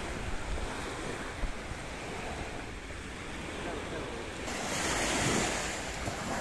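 Small waves breaking and washing up a sandy shore, with wind buffeting the microphone. About four and a half seconds in the surf becomes louder and hissier, a wave swelling and washing in.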